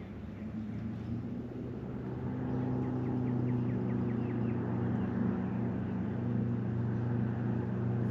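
Boat motor running with a steady hum that grows louder over the first few seconds, then holds.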